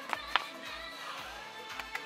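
Background music with sustained tones over a steady low beat of about two a second, with a couple of short clicks near the start.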